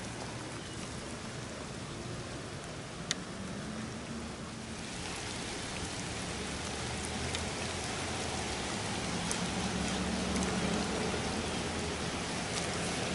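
Steady rain falling on water, growing heavier about five seconds in, with one sharp click about three seconds in.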